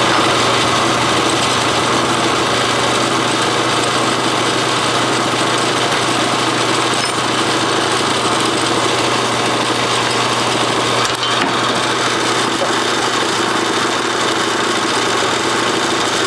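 Belt/disc sander motor running steadily, used as a lathe to spin a PVC workpiece while a hand-held parting tool cuts into the plastic.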